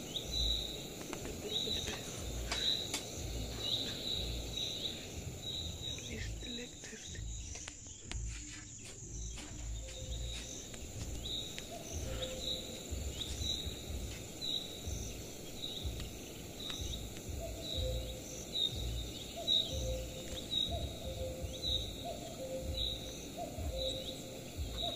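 Outdoor ambience with a high, short chirp repeating steadily about twice a second over low background noise.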